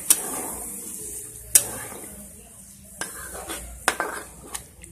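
Spatula clinking and scraping against a kadhai while stirring liver in watery gravy: five sharp clinks, the loudest about a second and a half in.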